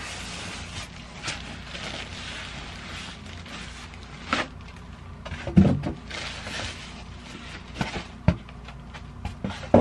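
Plastic wrapping rustling and crinkling as a boxed sewing machine is unpacked, followed by several knocks and thuds of the cardboard box and foam packing being handled, the loudest about halfway through and at the very end.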